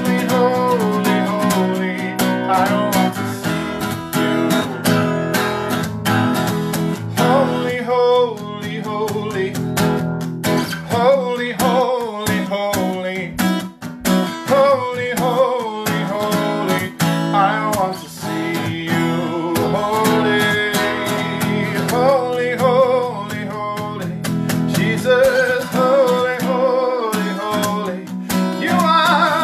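Acoustic guitar strummed under a man singing a worship song.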